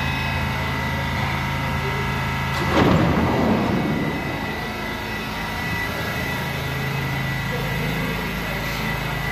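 R68 subway car standing at the platform with its equipment running: a steady low hum and a steady high whine. About three seconds in comes a loud noisy burst that fades over about a second, and the low hum drops out for a few seconds after it.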